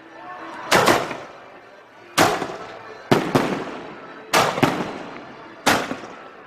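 Fireworks exploding: about seven sharp bangs at uneven intervals, some in quick pairs, each trailing off in an echo.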